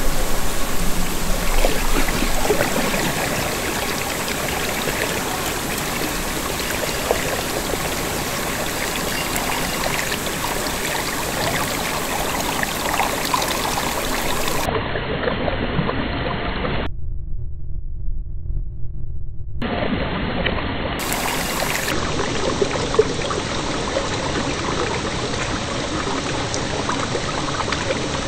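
Water rushing and swirling down a floor drain in a steady stream as the cleared drain empties the flood. The sound cuts out for about two seconds past the middle.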